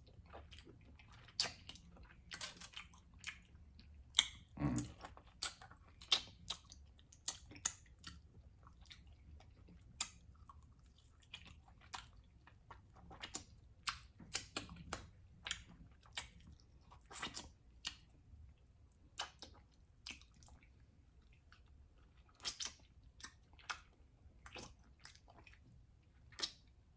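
A person chewing and eating food: irregular wet mouth clicks, smacks and occasional crunches, with a brief mumble about five seconds in.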